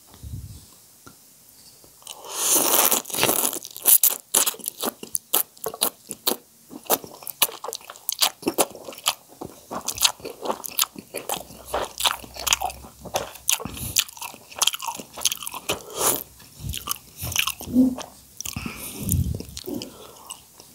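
Close-miked mouth sounds of a person eating soupy noodles: a quiet first couple of seconds, then a loud slurp of noodles, followed by steady wet chewing with many quick smacks and clicks.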